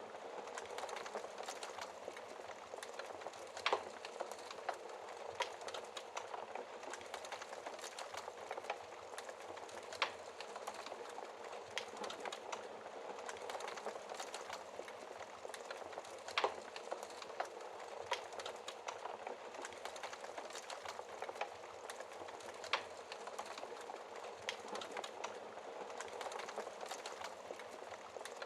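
Wood fire crackling in a fireplace: a steady soft hiss and fizz with sharp pops every few seconds.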